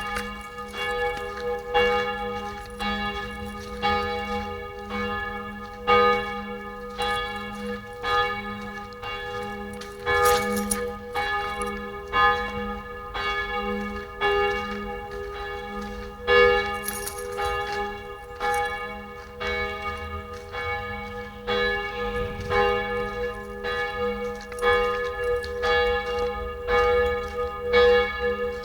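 Church bells ringing, strokes coming about once a second, each ringing on and overlapping the next so the tones blend into a continuous hum.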